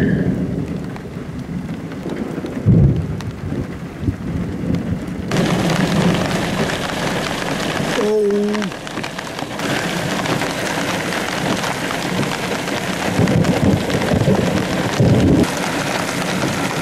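Thunder rumbling from a thunderstorm, loudest about three seconds in. About five seconds in, steady rain hiss begins, with more rolls of thunder near the end.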